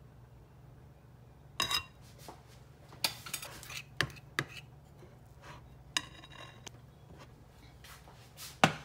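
A metal spoon scraping and clinking against a glass mixing bowl and a metal muffin tin as batter is scooped out and dropped into the cups. It starts after about a second and a half of quiet and goes on as a scattered run of scrapes and knocks, the loudest knock near the end.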